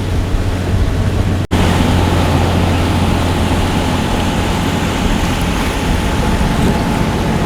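River boat's engine running at a steady drone, with water and wind noise over it. The sound breaks off for an instant about a second and a half in.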